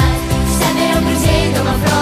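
Upbeat pop song music with a steady beat, an instrumental stretch between sung lines.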